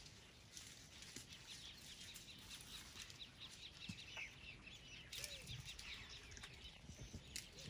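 Faint wild birds calling: a dense scatter of short high chirps, with a lower rising-and-falling call about five seconds in.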